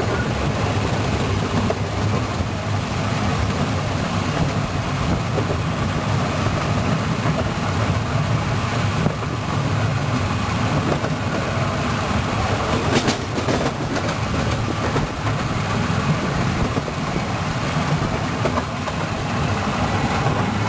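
Wulai trolley train, a small narrow-gauge tourist train, running along its track: a steady rumble and rattle of the cars' wheels, with a few sharp clicks a little past the middle.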